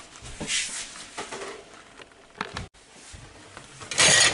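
Dishes being washed by hand at a stainless-steel sink: scattered knocks and clinks of glass and metal pot lids and plates being handled, then a loud short burst of noise about four seconds in.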